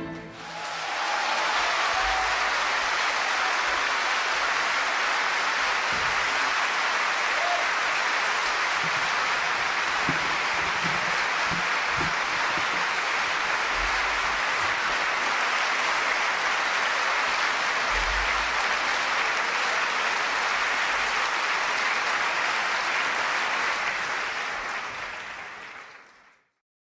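Large concert audience applauding, a dense, steady clapping that builds within about a second and then fades out near the end.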